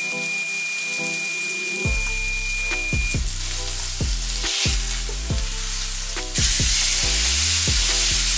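Marinated skirt steak searing in a hot stainless steel pan, sizzling steadily; the sizzle gets louder about six seconds in as the steak is turned with tongs.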